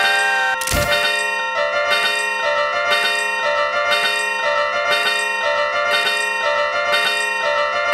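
Level-crossing warning bells ringing over and over, several steady tones alternating at about two strokes a second, with a whoosh sweeping down about a second in.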